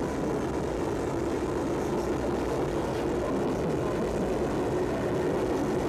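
Steady running rumble of a moving passenger carriage, heard from inside, with a faint constant hum beneath it.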